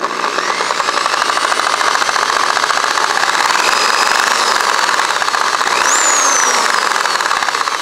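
Electric motor of a Harbor Freight corded reciprocating saw running steadily with its gear head opened up, a fast whirring with a light knocking in it. The knocking is, by the owner's guess, possibly just from the head being torn apart; the motor itself is still good. Its high whine briefly rises and falls about six seconds in.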